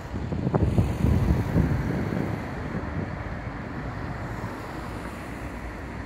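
Wind buffeting the microphone outdoors: a low, uneven rumble that is strongest in the first two seconds or so, then settles to a steadier rumble.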